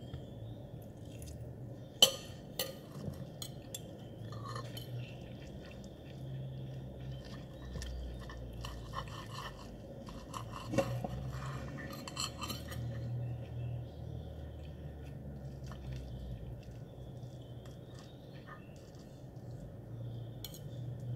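Metal fork and knife clinking and scraping against a ceramic plate while cutting through an omelette. There are scattered sharp clinks, the loudest about two seconds in and another near the middle, over a low steady hum.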